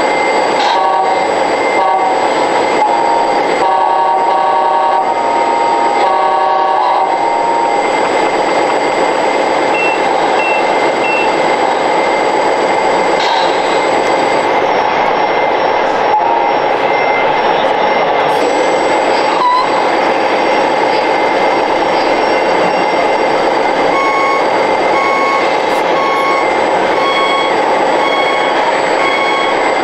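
Steady loud din of RC model truck sound modules running, with three short high beeps about ten seconds in. Over the last six seconds an electronic warning beep repeats about once a second, like a reversing alarm.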